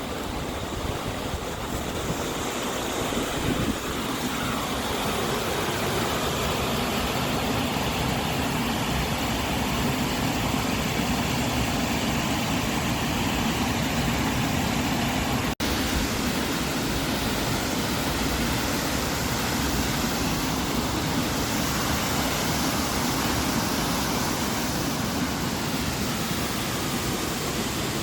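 Waterfall, falling water rushing as a loud, steady, even wash of noise, with a momentary cut-out a little past halfway.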